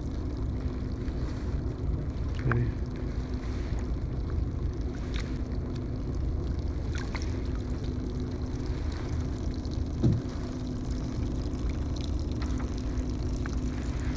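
Steady low rumble with a faint steady hum, with a single low thump about ten seconds in.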